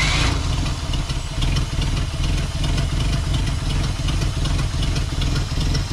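1987 Ford F150's engine running steadily with an even, rapid low pulse, just fired up on a replacement carburetor that has no accelerator pump.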